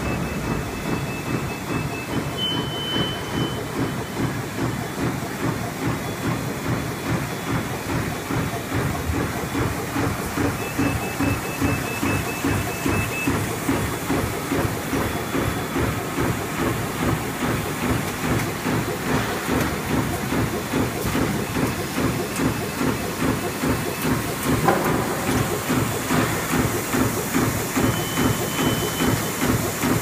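GUR-IS PS-ROLL 420 bag-making machine running, its sealing and perforating section cycling in a fast, even rhythm as plastic film feeds through the rollers. A hiss runs with it and grows louder from a little before the end.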